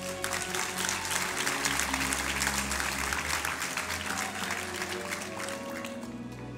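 Audience clapping over a folk band's instrumental passage, with violin, cimbalom, double bass and accordion playing on underneath. The clapping begins abruptly and thins out about six seconds in.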